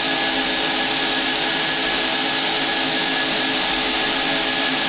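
A vacuum cleaner and a second blower run steadily together, pulling air out of a sealed 6,000-gallon aluminum tank; it is heard from inside the tank. There is an even rushing hiss with a steady whine in it, and it does not change.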